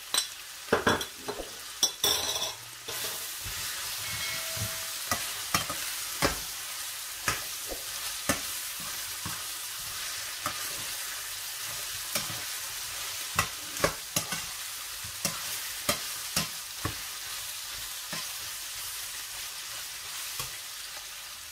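Chicken pieces and grated garlic sizzling in a stainless steel frying pan, with a slotted spatula scraping and knocking against the pan as it stirs. Several quick clicks come in the first few seconds, then a steady sizzle with scattered spatula knocks.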